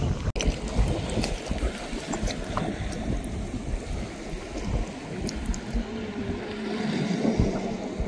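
Wind buffeting the microphone outdoors: a steady low rumble with scattered small clicks.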